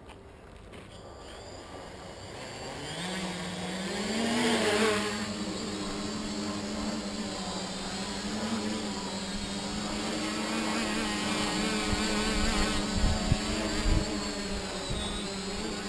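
A DJI Naza-controlled quadcopter's electric motors spin up, their whine rising in pitch a few seconds in, then hold at a steady hum with small wavers in pitch. The quad has a hiccup nearly every 2 seconds, which the owner first took for a gain problem. A few low thumps come near the end.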